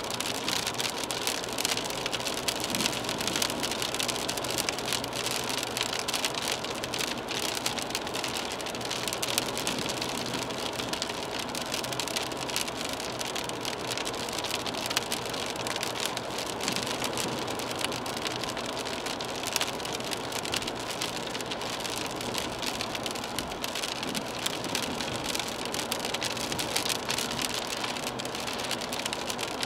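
Rain pattering steadily on the windshield and body of a moving BMW 320d, heard from inside the cabin as a dense hiss of drop ticks. A faint steady hum from the car's tyres on the wet road and its diesel engine runs underneath.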